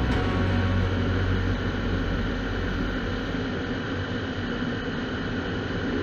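Motorcycle riding at speed: a steady rush of wind over the camera microphone, with the low drone of the engine underneath.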